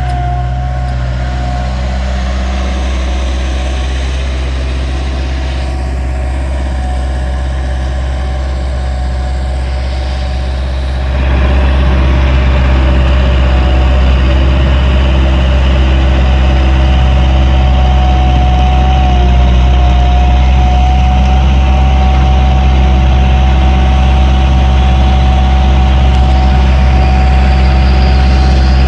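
Diesel skid steer loader running steadily, with a thin high whine over the engine drone; it gets louder about eleven seconds in and stays at that level.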